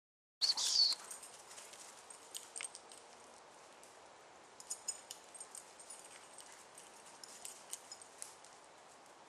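A brief shrill chirp about half a second in. It is followed by soft crackling and rustling of dry leaf litter and twigs as a Weimaraner gundog searches through woodland, with scattered high bird chirps.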